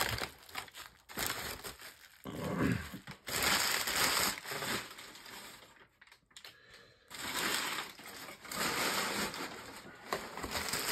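Shipping packaging being handled: plastic and wrapping rustling and crinkling in irregular bursts, with a brief lull about six seconds in.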